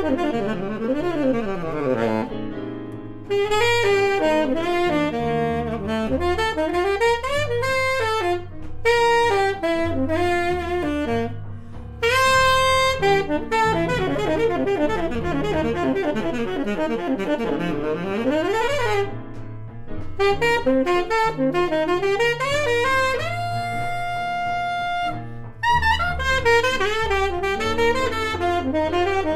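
Keilwerth tenor saxophone played solo in jazz style: fast runs sweeping up and down through its range, broken by short pauses, with one long held note a little past two-thirds of the way through.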